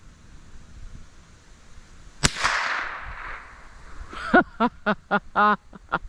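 A single rifle shot about two seconds in, a sharp crack whose echo dies away over about a second. Near the end comes a quick run of short, pitched calls, about five a second.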